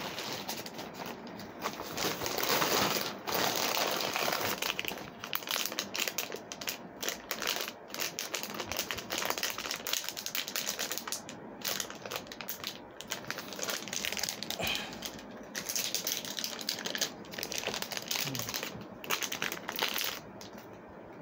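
Thin packaging wrap crinkling and crackling in irregular bursts as it is unwrapped by hand. It stops shortly before the end.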